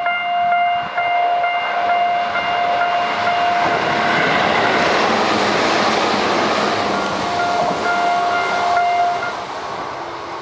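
Level-crossing warning bells ringing with an unusually low pitch, a steady repeating tone. From about three seconds in, a train passes through the crossing with a loud rumble of wheels on rails for several seconds. The bells and the train noise stop near the end as the crossing clears.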